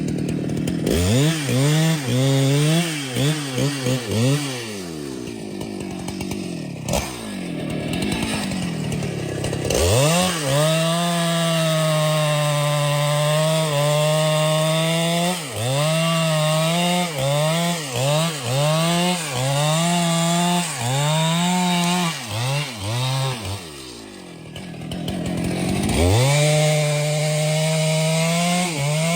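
Two-stroke chainsaw revving high and cutting timber, its engine speed repeatedly dipping and picking up again. Between cuts it drops back to a lower, quieter running.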